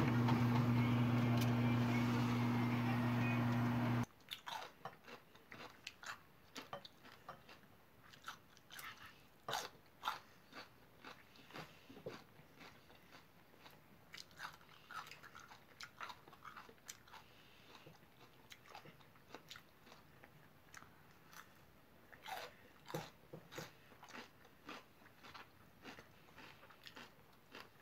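A steady electric hum with a low drone, from the oven roasting the pork belly, stops abruptly about four seconds in. After that, someone bites and chews raw yellow bell pepper: quiet, irregular crisp crunches.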